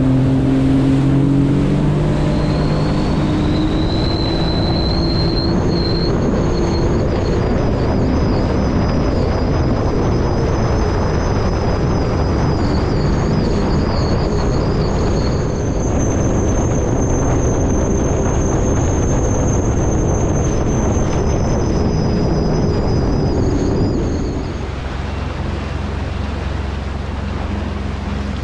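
Sea-Doo FishPro Trophy jet ski running at speed on the water. Its Rotax 1630 ACE engine revs up in the first couple of seconds, then holds a steady roar with a high whine over it. It eases off a few seconds before the end.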